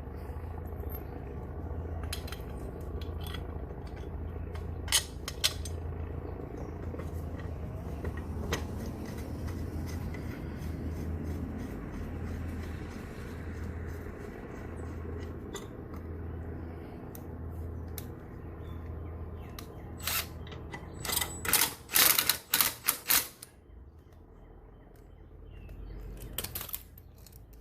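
Metal clinks and clanks of mower blade parts and tools being handled, with a burst of loud sharp clanks about twenty seconds in, over a steady low hum that pulses about once a second.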